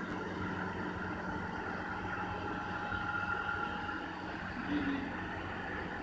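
Steady mechanical hum with a faint steady whine above it, unchanging throughout, and one brief short sound just before the end.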